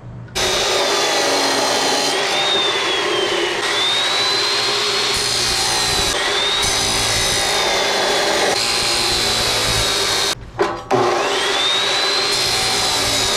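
Electric power saw cutting square steel bar stock: a loud, gritty cutting noise over a high motor whine that sags as the blade bites and climbs back as it eases off. It stops briefly about ten and a half seconds in, then spins back up with a rising whine.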